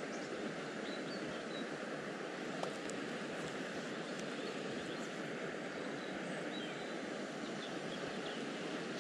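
Steady rushing outdoor noise beside the river, with a few faint, short high chirps of birds scattered through it.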